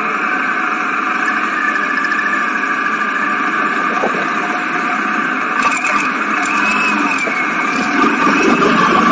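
BMW R 1200 GS motorcycle's boxer-twin engine running as the bike is ridden, its note rising and falling a little.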